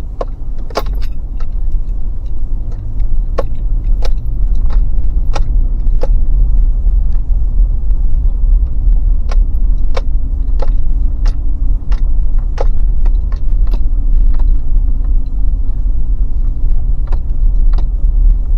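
Car driving slowly along a gravel road, heard from inside the cabin: a steady low rumble with scattered sharp clicks and rattles, about one a second.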